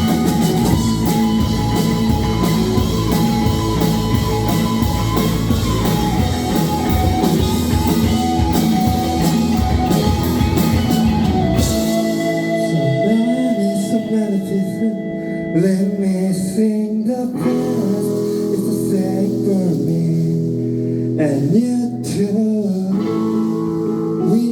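A live band playing a rock song with drums, bass and guitar; about halfway through the drums and bass drop out, leaving guitar and a singing voice.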